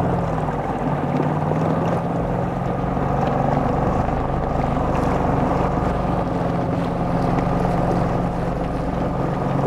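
Small boat's outboard motor running steadily with the boat under way.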